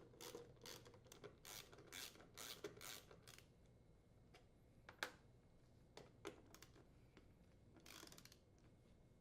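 Faint clicking of a 5/16 inch socket driver unthreading the hinge screws on a freezer's top door hinge, about three clicks a second at first, then a couple of sharper single clicks and a quick run of ticks near the end.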